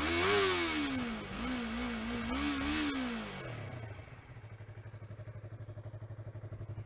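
2015 Yamaha YZF-R3's 321 cc parallel-twin engine revved while standing: several throttle blips rise and fall in pitch, then it drops back to a steady idle about four seconds in.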